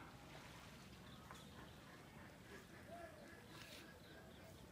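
Near silence: faint outdoor ambience with a few faint, short distant calls.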